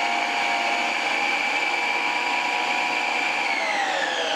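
Preethi Zodiac mixer-grinder's motor running with a steady whine, driving the slicing disc through onion fed down the feed tube. About three and a half seconds in, the whine falls in pitch as the motor winds down.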